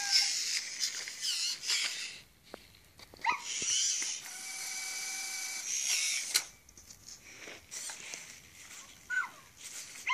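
Zoomer robot dog toy's motors and gears whirring as it rolls and turns on its wheeled feet, mixed with short electronic chirps. A steady hiss with a held tone runs for about two seconds in the middle.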